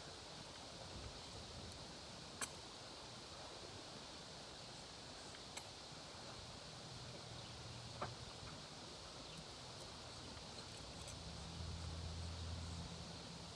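Faint outdoor background hiss broken by three brief, light clicks a few seconds apart, with a low hum coming in near the end.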